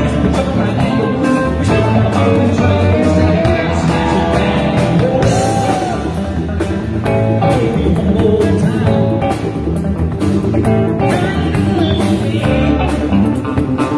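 Live blues band playing: electric guitar, drum kit with cymbals and electric bass, with a man singing at times.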